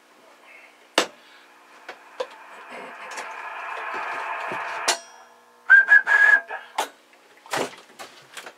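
A short, steady, high whistle into the microphone, slightly wavering and the loudest sound here, used as a test tone to check the AM modulation of a Gonset G-76 transmitter. Before it come a few sharp clicks and a hiss that swells and then stops.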